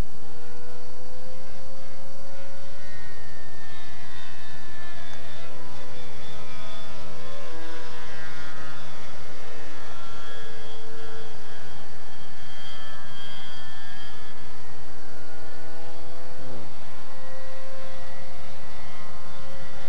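SuperTigre 90 model engine of an RC aerobatic airplane in flight, running steadily at high revs. Its pitch rises and falls several times as the plane manoeuvres and passes, with a quick drop in pitch near the end.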